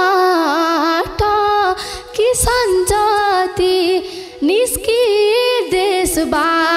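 A woman singing a Nepali dohori folk song, a high voice in wavering, ornamented phrases broken by short breaths.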